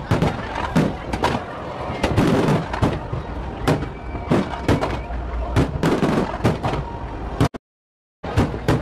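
Aerial fireworks shells going off in a rapid string of bangs and crackles over a constant rumble. The sound cuts out completely for under a second near the end.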